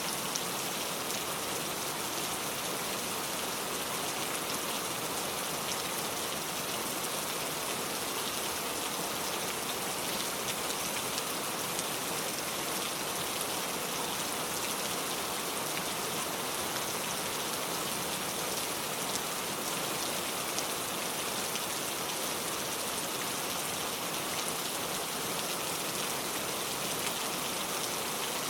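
Steady rain falling, with many small, sharp ticks of individual drops striking.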